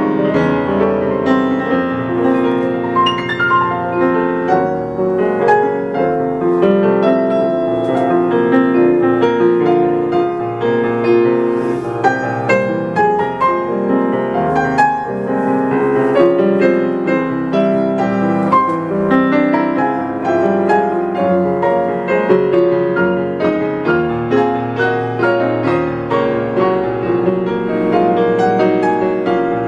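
Steinway grand piano played four hands by two pianists: a dense, unbroken flow of many notes and chords sounding at once.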